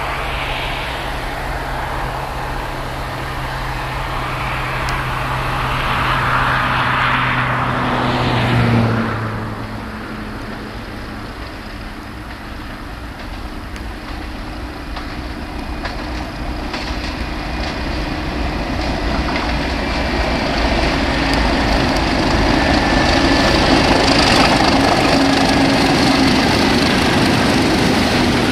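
Class 37 diesel locomotives, English Electric V12 engines, hauling a heavy steel train under power. The engine note is steady, then drops and fades about nine seconds in. It builds again into a loud, steady rumble as the locomotives draw close and pass.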